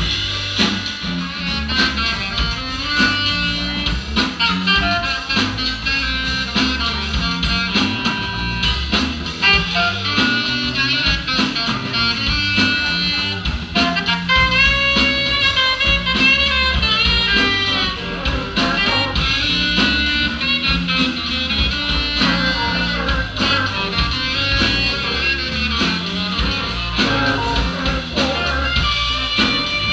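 Live band music: guitar and a wind instrument play melody lines over a steady bass and rhythm section.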